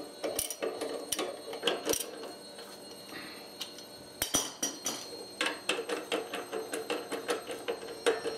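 Socket ratchet clicking in quick runs of sharp ticks as the bolt holding a mower blade is worked loose anti-clockwise, with a quieter pause of about two seconds in the middle.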